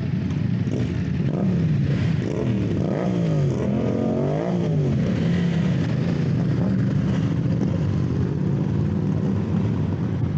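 Motorcycle engine running, its pitch rising and falling several times in the first half as it revs, then holding steady.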